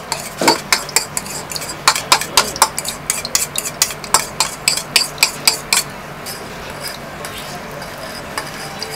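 A spoon clinking and scraping against a bowl, about four quick knocks a second, as the last of the beaten egg is scraped into the frying pan. Under it, egg frying in oil sizzles steadily; the clinking stops about six seconds in, leaving only the sizzle.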